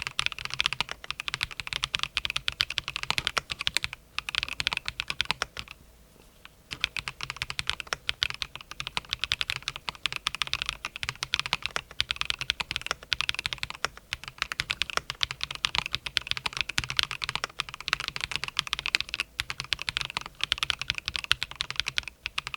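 Fast continuous typing on a Logicool Alto Keys K98M gasket-mount mechanical keyboard: dense rapid keystroke clicks, with a pause of about a second roughly five and a half seconds in.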